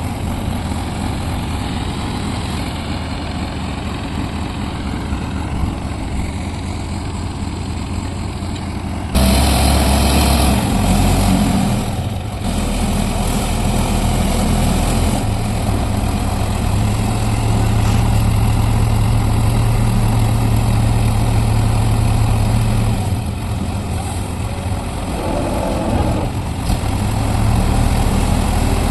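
Heavy construction machine's engine running, then revving up sharply about nine seconds in and holding a louder, steady note, easing back and rising again near the end.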